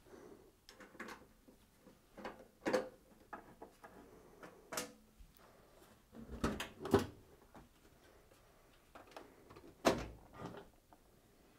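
Screwdriver undoing screws from a sheet-metal dishwasher base panel: scattered light clicks and small metallic knocks. Near the end, a few louder knocks as the metal panel is lifted off.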